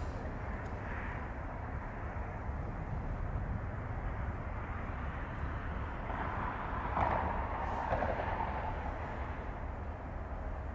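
Outdoor ambience by a river, mostly a steady, fluttering low rumble of wind on the microphone with a hiss of moving air and water behind it. A brief louder swell comes about seven seconds in.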